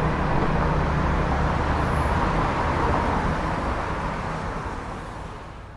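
Busy city road traffic: a steady roar of passing cars and other vehicles with low engine rumble, fading out over the last few seconds.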